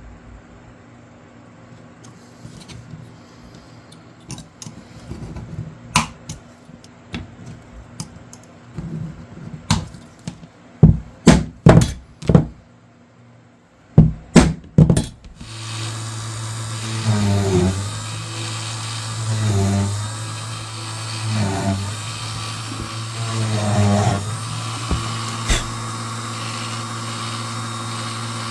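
Workshop hand-tool clicks and knocks, with a handful of loud sharp strikes about halfway through. Then a small power tool starts up and runs steadily for the rest of the time, its sound swelling several times.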